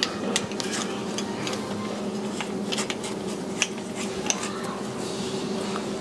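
Irregular small plastic clicks and light knocks as a plastic hose fitting is worked off the old dishwasher part and fitted onto the replacement, over a steady low hum.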